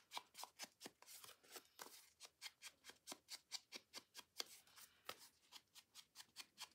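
Faint, quick rubbing strokes against the edges of a paper card, about five a second, as the edges are distressed.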